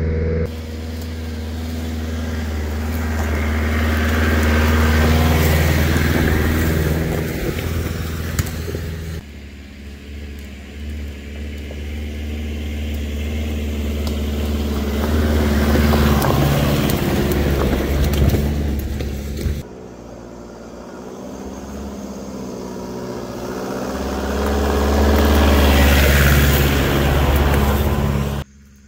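Nissan Patrol 4x4 crawling over a rocky forest track, its engine running at low speed with the revs rising and falling, with stones crunching under the tyres. It grows louder as it nears. The sound changes abruptly twice and drops away sharply near the end.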